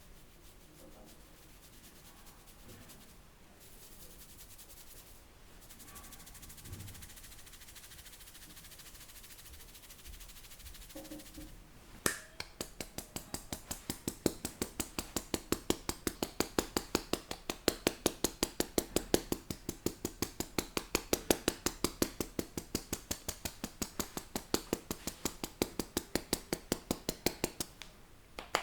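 Rapid, even hand slapping of a percussive head massage, about five strikes a second, starting suddenly with a sharp clap about twelve seconds in. Before it only faint rustling and low sounds.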